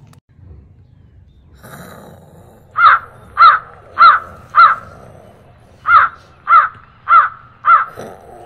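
Crow cawing: eight loud caws in two sets of four, each set evenly spaced about half a second apart.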